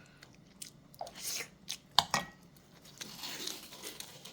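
Close-up eating sounds of kimchi fried rice: chewing and mouth noises with scattered sharp clicks, the loudest about two seconds in.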